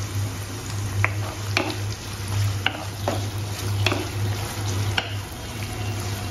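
Onions, garlic cloves and whole dry red chillies sizzling in hot oil in a nonstick kadai while a spatula stirs them, with about six scrapes or knocks of the spatula against the pan.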